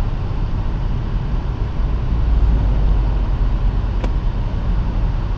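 Road noise heard from inside a moving car: a steady low rumble of engine and tyres, with a single sharp click about four seconds in.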